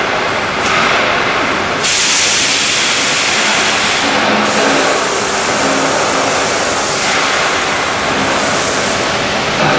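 Steady, loud industrial machinery noise with a strong hiss, from an automatic steel strapping line at work.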